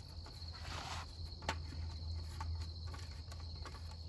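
Steady high-pitched cricket trill over a low hum, with a brief rustle just before a second in, a sharp click about a second and a half in, and a few fainter clicks from small parts being handled.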